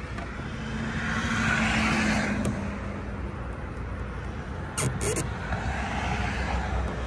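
Outdoor road traffic rumble, with a vehicle passing by, loudest about two seconds in. Two sharp clicks come close together about five seconds in.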